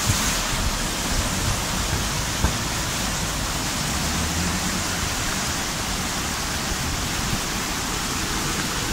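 Fast, turbulent mountain river rushing over rapids below a bridge: a steady, even rush of white water.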